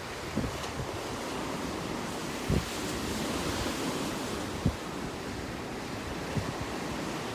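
Atlantic surf washing steadily against the shore, with a few short low thumps of wind buffeting the microphone.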